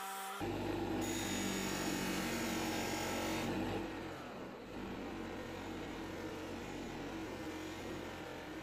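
Electric bench grinder running with a steel axe head pressed against its spinning polishing wheel: a steady motor hum with rough friction noise from the buffing. The sound jumps louder about half a second in and eases off a little after about three and a half seconds.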